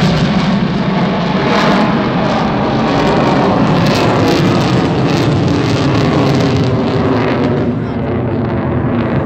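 Fighter jet's engine roar heard from the ground, a loud steady rushing noise, as the jet climbs steeply while dispensing flares.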